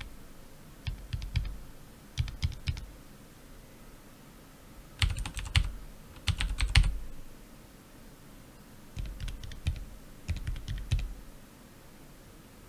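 Keychron K7 low-profile mechanical keyboard with Gateron Red linear switches being typed on in short bursts of rapid keystrokes with pauses between. The loudest bursts come a little past halfway.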